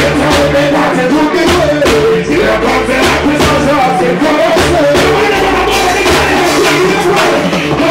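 Live band of drum kit, keyboards, electric guitar and bass playing a steady beat, with a man singing over it.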